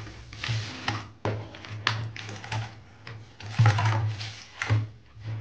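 A Logitech K480 keyboard being lifted out of its cardboard box: packaging rustling with scattered clicks and knocks, over a steady low hum.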